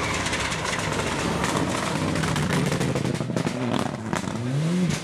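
Rally car engine running hard at high revs through a tight hairpin, with many sharp cracks and pops, and the engine note rising and falling near the end.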